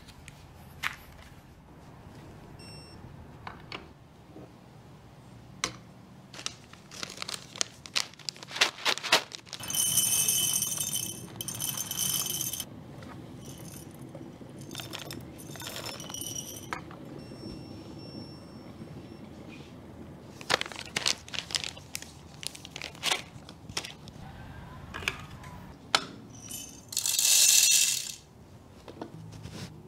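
Paper coffee bag crinkling and small clicks of handling, with whole coffee beans poured out in two rattling pours: into a glass bowl about ten seconds in, and into the plastic hopper of a Breville coffee grinder near the end.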